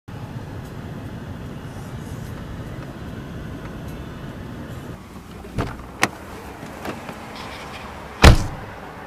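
Low steady rumble of a car that stops about five seconds in, followed by a few light clicks and a single loud car-door slam near the end.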